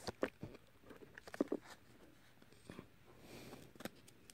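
Faint crinkling and small clicks of a paper sticker sheet handled between the fingers as a sticker is peeled off its backing, a little louder near the start and about a second and a half in.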